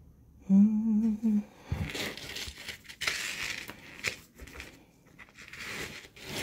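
A woman hums briefly, a wavering "hmm" about half a second in, followed by several seconds of crinkling and small clicks as pieces of costume jewelry and their packaging are handled and sorted.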